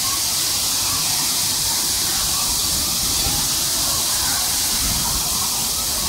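Waterfall crashing into a pool at close range: a loud, steady hiss of falling and splashing water.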